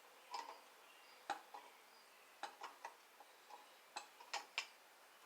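Faint, irregular metallic clicks and taps, about ten in all, from metal parts and tools being shifted and tightened while the propane forge burner is centred.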